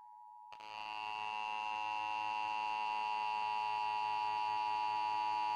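Emergency Alert System attention signal: a steady two-tone alarm that starts faint and jumps much louder about half a second in. It then swells a little more and holds, with many extra buzzy overtones.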